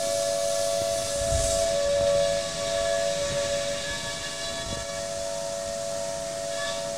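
High-speed spindle of a DATRON CNC milling machine running with a steady high-pitched whine over a hiss of coolant spray, while a small tool drills into a part. The sound eases a little about halfway through.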